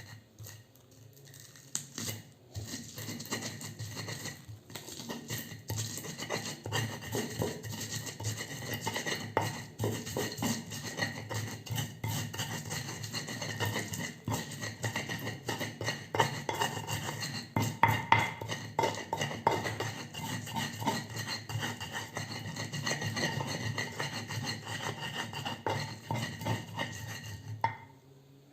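Utensil stirring and scraping steadily against a bowl, a dense run of small clicks and scrapes, as seasoning is mixed into the flour batter for fried tempe. It stops abruptly shortly before the end.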